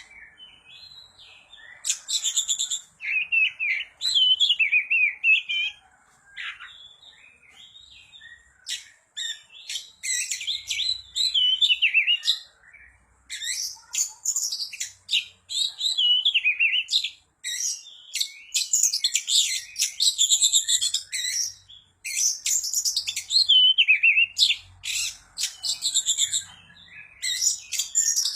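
Oriental magpie-robin (kacer) in full, excited song: a long run of rapid, varied whistles, trills and sharp chattering notes, broken by short pauses.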